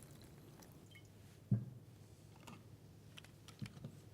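Faint kitchen handling sounds: a knock about a second and a half in, then a few light clicks, as of ingredients and a plastic press-and-chop food chopper being handled.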